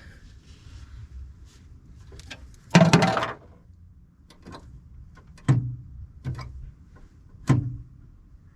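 Knocks and clatter from hands refitting the brake-light switch and its bracket on the steering column: one loud clattering knock about three seconds in, then three lighter knocks.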